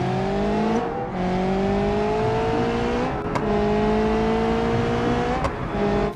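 Racing car engine accelerating hard, its pitch climbing steadily and dropping back at each upshift every second or two, like a car pulling through the gears.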